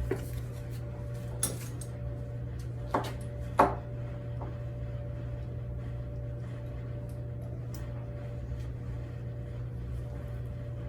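A few short knocks and clinks of small hard objects, four in the first four seconds, the loudest a sharp knock about three and a half seconds in, over a steady low hum.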